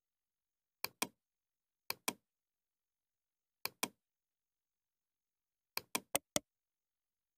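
Computer mouse clicking four times, each a sharp press-and-release pair of clicks. The last is a quick double click.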